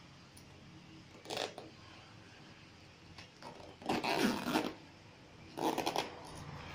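Zipper on a parachute-fabric backpack bag being pulled shut in three short runs: one about a second and a half in, a longer, louder one around four seconds, and one near six seconds.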